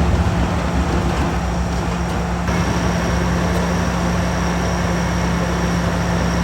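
Demolition excavator's diesel engine running steadily as it works on a concrete column, a constant low hum under an even mechanical noise. About two and a half seconds in, a faint high whine joins and holds.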